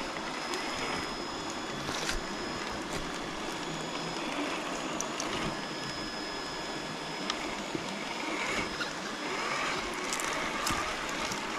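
Steady rush of flowing stream water, with a thin high steady whine and a few sharp clicks over it.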